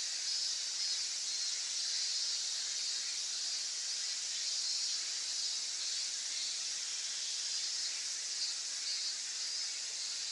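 Steady, high-pitched insect chorus that keeps up without a break.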